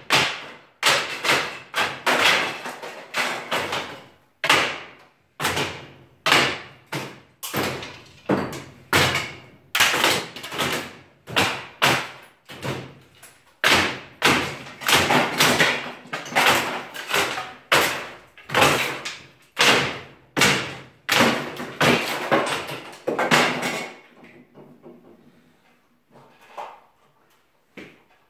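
A long metal bar striking and prying at a wooden ceiling being torn out: an irregular run of sharp bangs and cracks, roughly one or two a second, each ringing briefly in the room. The banging stops about four seconds before the end, leaving a few faint knocks.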